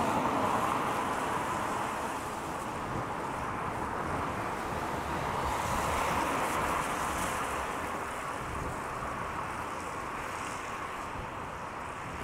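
Steady rushing noise of a wet street in rain, swelling near the start and again about six seconds in, then easing off.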